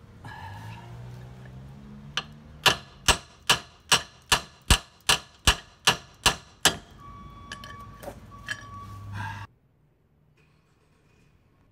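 A full-size hammer striking the handle of a steel pipe wrench clamped on a seized trailer-hitch pin. About a dozen sharp metallic blows come at roughly two and a half a second, with lighter clatter before and after.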